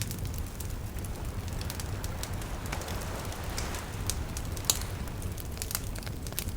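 Wood campfire burning, with irregular crackles and snaps over a steady low rumble of the flames. One sharper pop comes about two-thirds of the way through.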